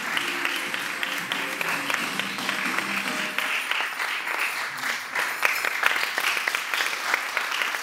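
Audience applauding, a dense steady clatter of many hands, with music playing under it for the first three seconds or so.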